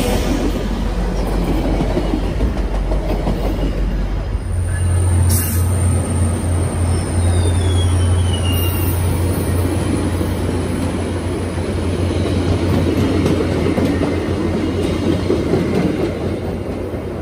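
VIA Rail passenger cars rolling past at speed: a steady rumble of wheels on rail, with faint wheel squeal in the middle. The sound changes abruptly about four seconds in, where a second passing passenger train takes over.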